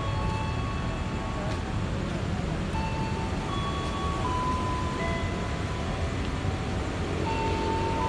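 Commuter rail platform ambience: a steady low rumble, with a slow melody of long held notes playing over it.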